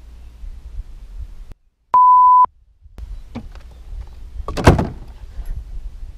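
Edited-in censor bleep: a single steady high beep lasting about half a second, with dead silence cut in just before and after it, covering a swear word. A loud knock follows about four and a half seconds in.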